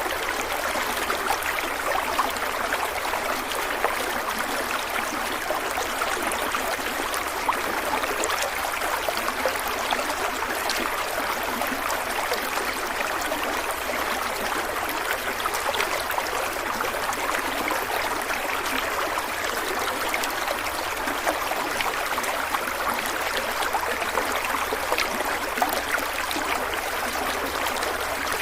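A small stream of water running steadily over stones, with a constant rushing babble and small trickling splashes.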